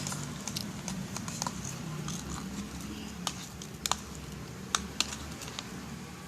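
Freshly made, still-sticky slime being stirred with a spoon in a container, giving sticky squelches with sharp clicks and pops now and then.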